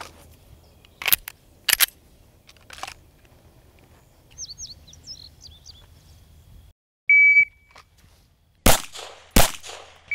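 Shot timer start beep, then about a second and a half later two pistol shots about 0.7 s apart from a Smith & Wesson M&P M2.0 Core, one on each of two targets; the timer's second beep, marking the 3-second par time, sounds at the very end. Earlier, two sharp cracks about a second in and birds chirping.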